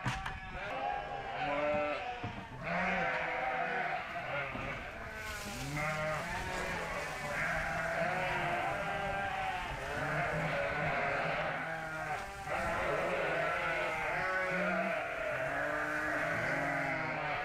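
A barn full of sheep and lambs bleating constantly, many calls overlapping at different pitches. From about five seconds in there is also a steady hiss as shelled corn is poured from a pail into the lamb feed trough.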